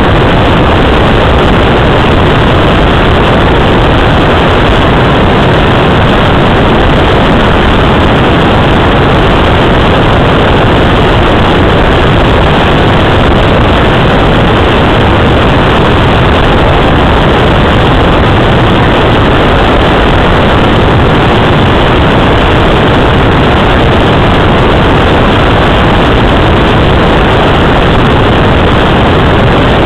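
Loud, steady rush of airflow on the microphone of a Let L-33 Solo glider being towed aloft, an even wind noise with no rise or fall.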